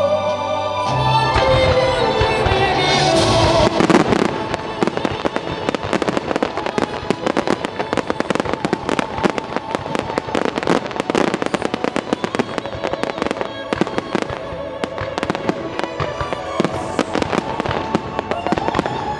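Show music with a sung melody, then from about four seconds in a dense barrage of firework bursts: rapid, overlapping pops and crackles going on continuously over fainter music.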